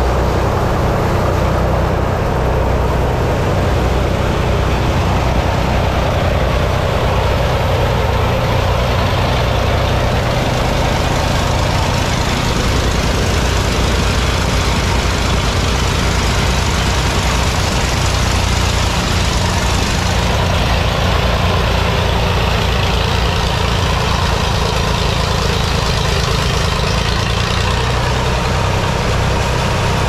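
Sawmill machinery running: a loud, steady, engine-like drone with a brighter hiss added for a stretch in the middle.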